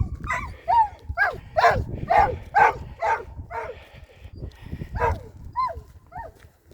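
A dog barking and yelping over and over, about two barks a second, thinning out toward the end.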